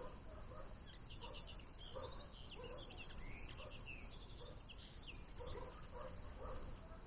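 Small songbirds twittering: a steady run of short, quick chirps and trills throughout, over a constant low background rumble.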